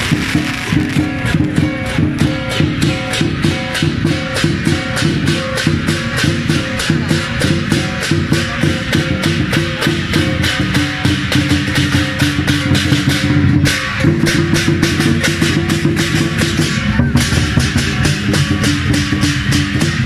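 Chinese festival procession percussion: a big drum and crashing cymbals playing a fast, even beat, with ringing held tones underneath.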